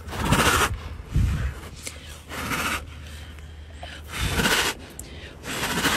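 Tiger chuffing: five short, breathy puffs through the nose, unevenly spaced. Chuffing is the tiger's friendly greeting sound.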